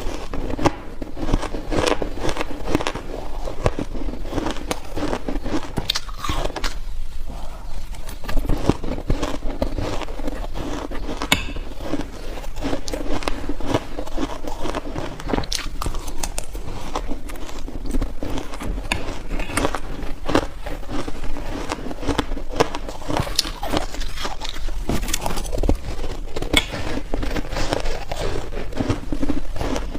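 Close-up biting into soft, crunchy freezer-frost ice: a continuous run of crunches and crackles, bite after bite.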